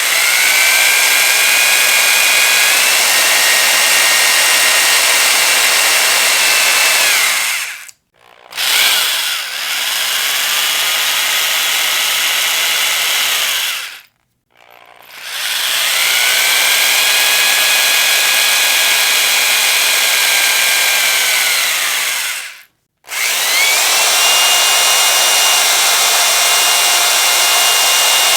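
Electric power drill running loud in four runs of several seconds each, its high motor whine rising as it spins up and falling as it winds down, with three short stops in between.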